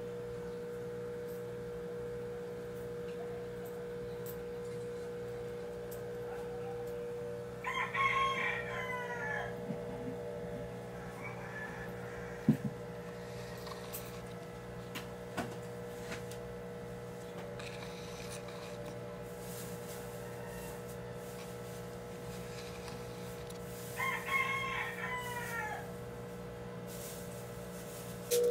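A rooster crowing twice, the crows about sixteen seconds apart, over a steady hum.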